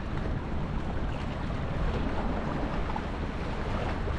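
Wind blowing on the microphone: a steady low rush with no distinct events.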